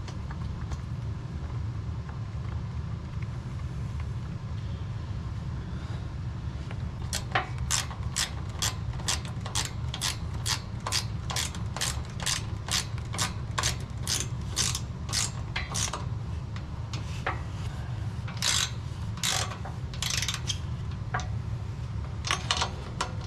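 Hand ratchet wrench clicking as a bolt is tightened down. There is a run of even clicks, about two or three a second, from about seven seconds in, then scattered clicks near the end, over a steady low rumble.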